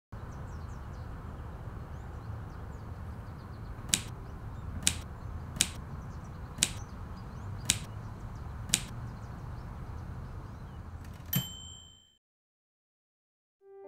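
Royal manual typewriter with six sharp key strikes about a second apart over a low steady hum, then a single ringing bell ding near the end.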